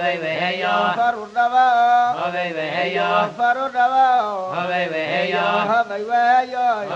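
A solo voice chanting a melodic song in wavering phrases, with short breaks between the phrases.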